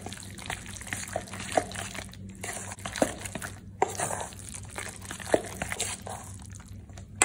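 A spoon stirring thick, wet aubergine and walnut paste in a stainless steel mixing bowl: irregular squelching with scattered soft knocks and scrapes against the bowl.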